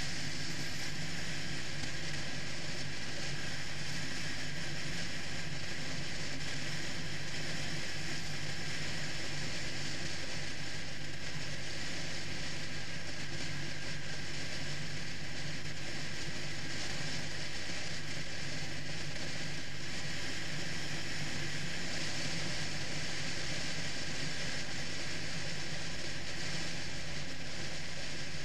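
Triumph Rocket III's 2.3-litre inline-three engine running steadily while cruising, with a strong even wind rush on the microphone over it.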